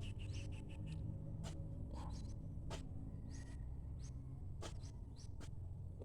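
Electric water pump running with a steady low hum. Short high chirps recur about once a second over it, with a few sharp clicks.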